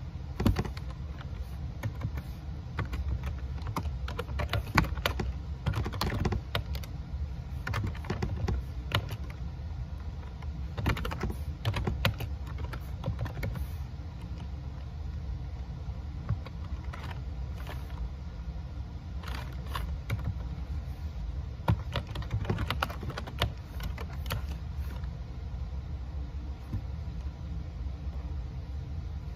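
Laptop keyboard keys clicking in irregular bursts, over a steady low rumble.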